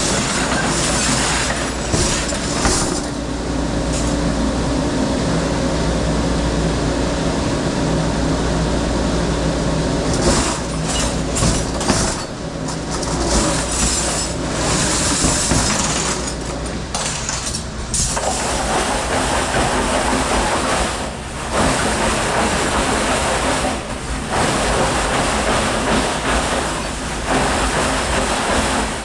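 Dish-room noise: a commercial dishwashing machine running, a steady motor and pump hum under a loud hiss of spraying water, with dishes knocking now and then.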